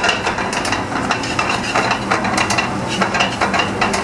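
Rice and beans being stirred in a steel frying pan with a metal spoon: repeated irregular scrapes and clinks of spoon against pan over a steady background hum.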